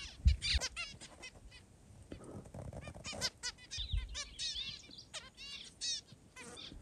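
A flock of zebra finches calling, with many short, repeated calls from several birds overlapping in clusters. A brief low thump comes near the start.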